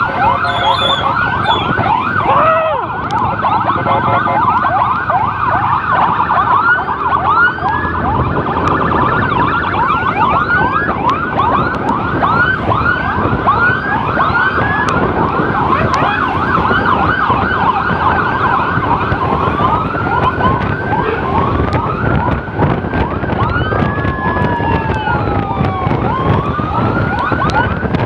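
Electronic emergency sirens of an ambulance escort: a fast yelp, two or three rising-falling sweeps a second, changes about two-thirds through to a slower wail. Near the end a second siren sweeps at a different rate, so the two cross. Road and engine noise runs underneath.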